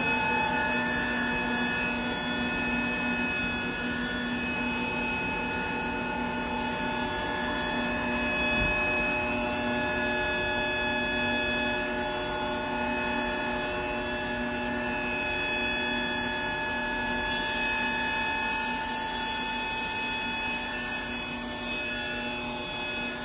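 Boeing 737-800 in climb heard from inside the main landing gear well: steady jet engine and airflow noise with several constant whining tones that hold unchanged, and one faint knock about eight and a half seconds in.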